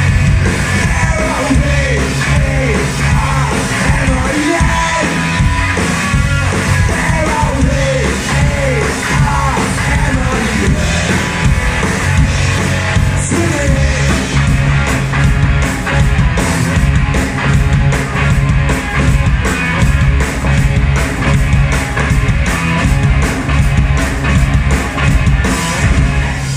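Live rock band playing: electric guitar, electric bass and drums, with some shouted singing. Repeated falling pitch slides run through the first ten seconds, and fast, dense cymbal hits fill the second half.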